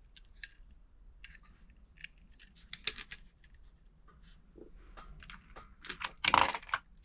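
Handling of diecast model cars: scattered small clicks and taps of plastic and metal pieces being picked up and set down, with one louder clatter about six seconds in.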